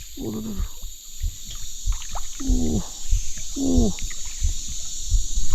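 Water splashing and sloshing at the riverbank as a large jelawat fish is hauled in, with a few short, falling wordless calls from the anglers and low thuds of handling.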